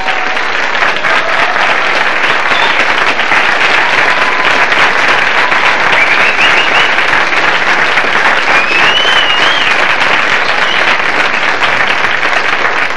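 Studio audience applauding steadily, with a couple of wavering whistles over the clapping about six and nine seconds in.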